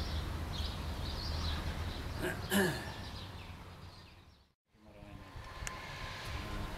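Outdoor background noise with a steady low rumble, one brief pitched sound about two and a half seconds in, and a short dead silence at an edit near the middle.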